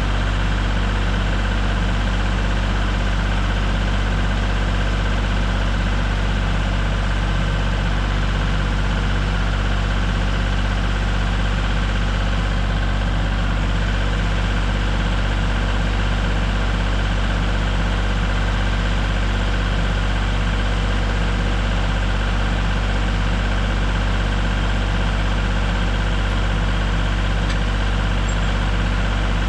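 Norwood MX34 portable bandsaw mill's engine running at a steady speed, one unbroken drone with no change in pitch or level.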